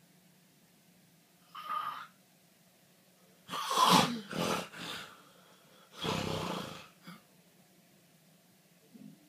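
A sleeping person snoring and snorting in irregular bursts. There is a short snort about a second and a half in, then a loud run of three or four rough snores between about three and a half and five seconds. A longer snore follows around six seconds, with small snuffles near the end.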